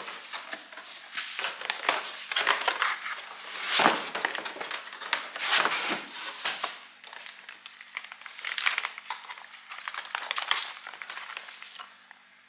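Packaging being handled while a boxed coffee machine is unpacked: irregular crinkling, crumpling and rustling of wrapping and cardboard, with a few louder scrapes.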